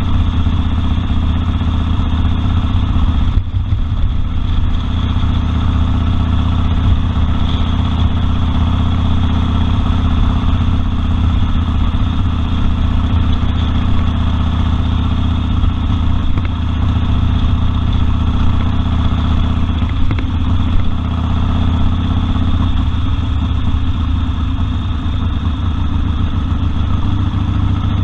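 Harley-Davidson Sportster Custom 1200's air-cooled 1200 cc V-twin engine running steadily, with no big revs up or down.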